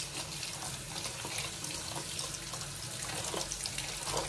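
Water running steadily from a kitchen tap while a piece of salt cod is rubbed clean of its scales by hand, with small scattered clicks and splashes.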